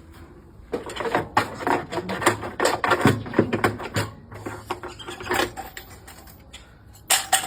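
Clicking, knocking and rattling of a washing machine's shock absorber being worked out of its mount by hand, in a busy run of clicks over a few seconds, a few more later and one sharp knock near the end.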